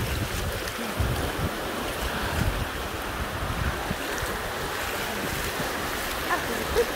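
Ocean surf breaking and washing up a shallow sandy beach, with wind buffeting the microphone in irregular low rumbles.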